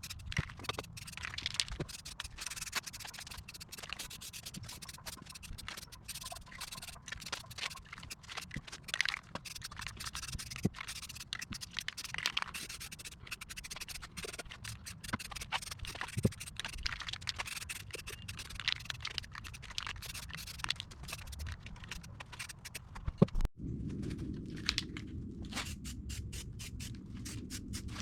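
Irregular hand scraping and sanding on a metal part, with scattered clicks, typical of prepping bare metal for paint. Near the end the sound changes abruptly to a duller, lower rubbing.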